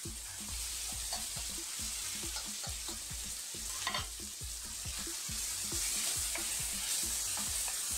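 Bacon and tinned tomato sauce sizzling in a wok on high heat, with a utensil knocking and scraping against the pan many times in quick, irregular strokes as the whole tomatoes are broken up. The sizzle grows a little louder partway through.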